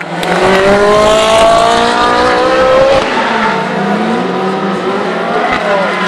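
Ferrari 458 Challenge V8 race engine accelerating hard, its pitch rising for about three seconds, then dropping sharply at an upshift and running on at high revs.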